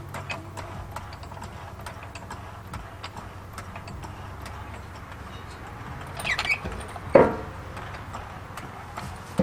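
Steel rock slider and its mounting hardware being handled against the truck frame: irregular light metallic ticks and clicks, a short scrape about six seconds in, and a louder metal clank about seven seconds in.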